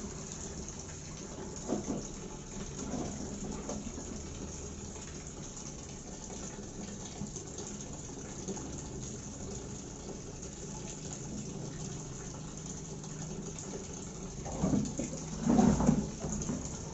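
Water pouring and splashing as a plastic tub of wash water is tipped out onto a wet floor while vegetables are washed, with a few hollow plastic knocks from the tubs and a plastic bowl, the loudest near the end.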